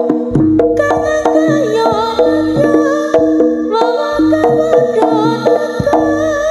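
Live jaranan music from a gamelan-style ensemble. Struck, pitched metal notes ring over drums and a pulse of low notes, in a steady, repeating rhythm.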